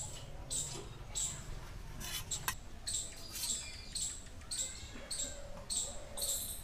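Kitchen knife sawing through the crusts of sliced white bread on a steel plate: a dry, scratchy rasp at each stroke, a little under two strokes a second, with one sharp click about halfway through.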